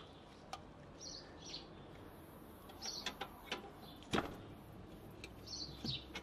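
Faint bird chirps in the background, with a few light clicks and one sharper knock about four seconds in.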